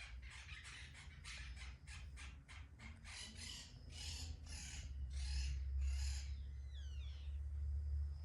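A cat licking its fur while grooming itself: a run of short rasping tongue strokes, about three a second and then slower, about two a second. A bird gives a brief chirp near the end, over a steady low rumble.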